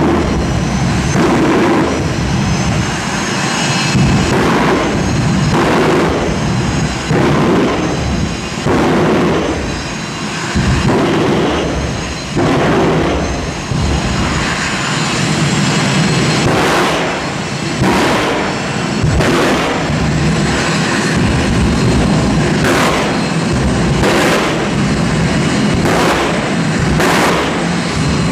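Drag-race car on the start line running with a continuous rumble and a faint high whine, broken by a long string of loud bangs about one every second as fire bursts from it.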